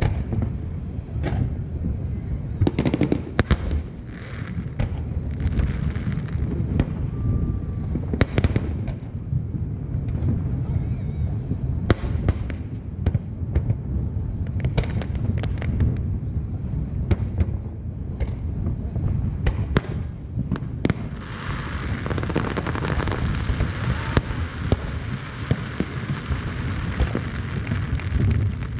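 Fireworks going off: irregular sharp bangs and booms, often a few seconds apart, over a steady low rumble. From about twenty seconds in, a dense steady hiss joins in until near the end.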